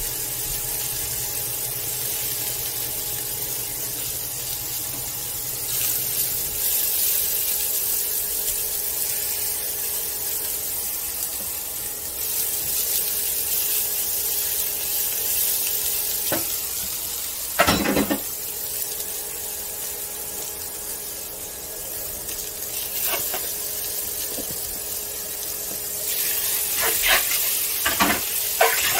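Vegetables stir-frying in a nonstick pan: a steady sizzle that grows louder about six seconds in. One loud knock comes about two-thirds of the way through, and a few sharp clicks of the silicone spatula near the end.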